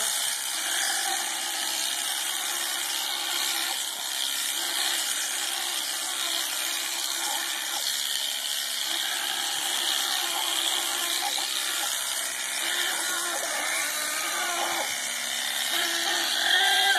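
Electric shearing handpiece running steadily as it clips through an alpaca's fleece.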